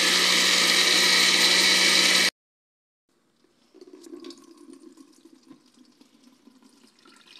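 Electric blender running steadily, liquidising watermelon chunks, and stopping abruptly about two seconds in. After a brief silence comes the quieter sound of blended watermelon juice poured from the blender jar into a plastic strainer and worked with a wooden spoon: splashing liquid with light scraping and taps.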